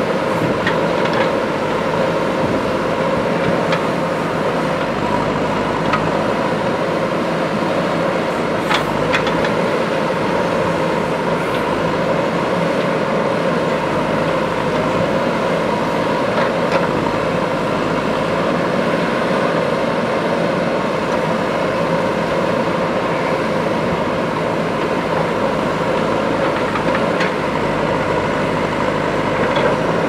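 JCB 3DX backhoe loader's diesel engine running steadily as a continuous drone while the backhoe digs, with a few short, sharp knocks scattered through it.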